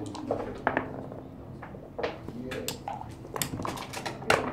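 Irregular sharp clicks and knocks of backgammon equipment being handled: dice, dice cup and checkers on the wooden board, the loudest knock near the end.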